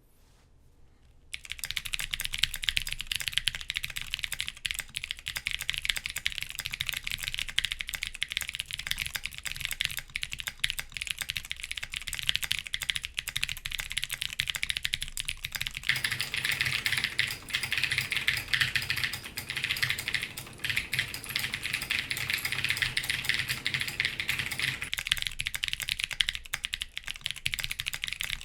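Continuous fast typing on a custom Kypseli Mini mechanical keyboard with lubed clicky Razer Green switches on an aluminum plate and GMK keycaps: a dense stream of key clicks. It starts about a second in and grows fuller and louder through a stretch in the middle.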